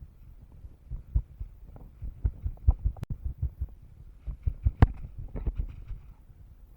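Irregular low thumps of footsteps and gear knocking on the microphone, with one sharp click about three seconds in and a louder knock near five seconds.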